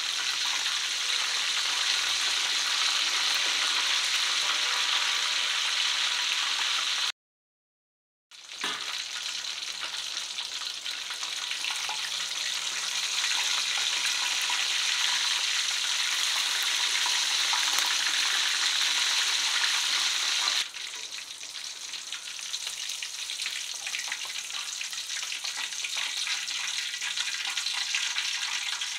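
Hot oil sizzling steadily around a whole chicken deep-frying in a pan. The sizzle cuts out for about a second near the quarter mark, then comes back, and turns quieter about two-thirds of the way through.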